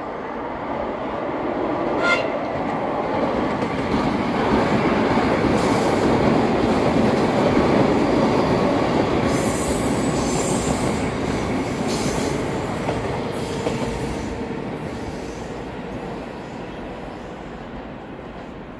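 Two metro trains, one a grey-and-blue 81-717 type, pass each other on an open-air section. The rumble of wheels on rail swells to a peak and then fades away, with rail-joint clicks along the way. A short high-pitched wheel squeal comes about two seconds in.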